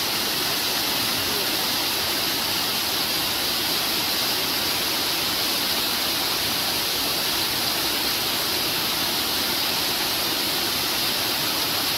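Small waterfall, water pouring over a low concrete weir onto rocks below, making a steady, unbroken rushing.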